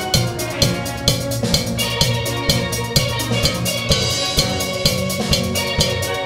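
Steel band playing: many steelpans, from the high lead pans to the deep bass barrels, sounding a melody and chords over a steady percussive beat of about two to three strokes a second.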